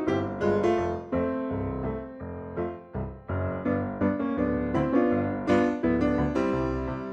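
Background piano music: a light melody of struck notes over chords.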